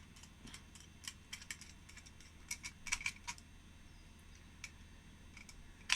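Light, irregular clicks and ticks of a small screw being tightened with a screwdriver into the housing of a blade cutting tool, bunched about two to three seconds in, with one sharper click at the end.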